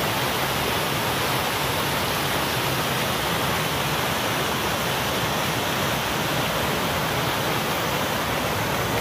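A large fountain's water jets splashing and falling into the basin, a steady loud rushing hiss with no change throughout.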